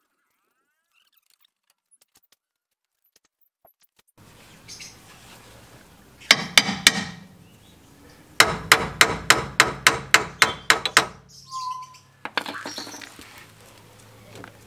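Hammer blows on steel, starting after about four seconds of near silence: two sharp strikes, then a quick run of about a dozen evenly spaced taps, about four a second. They come as the CV axle is knocked home into the front wheel hub.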